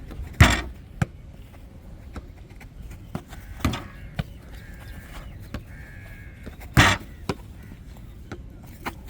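A football hit back and forth in a table jokgu rally: three loud thuds about three seconds apart, each followed by a lighter tap as the ball bounces.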